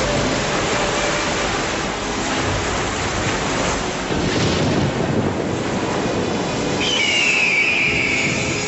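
Stormy sea: waves and wind in a steady rush. About seven seconds in, a high tone enters and slowly falls.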